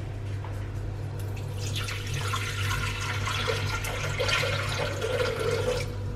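Water poured from a container into a Thermomix mixing bowl, splashing and gurgling from about a second in until just before the end, over a steady low hum.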